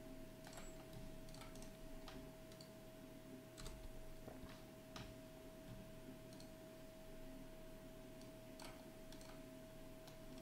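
Faint computer keyboard keystrokes clicking now and then at irregular intervals, over a steady faint high tone.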